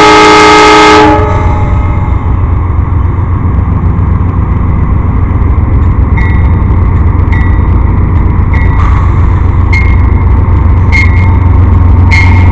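Amtrak GE Genesis diesel locomotive sounding a short, loud horn chord that ends about a second in. The horn gives way to the steady low drone of its diesel engine running at close range. From about six seconds in, a short bell-like ding repeats about once a second over the engine.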